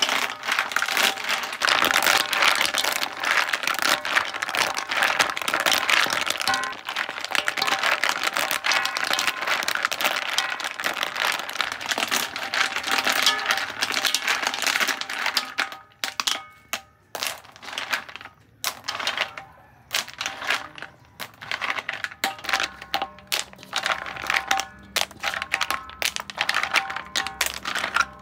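Live clams being scrubbed by hand in a wok of water, their shells clacking and grinding against one another and the metal pan in a dense, rapid clatter. About halfway through the clatter thins into scattered clicks with short pauses as the clams are picked out.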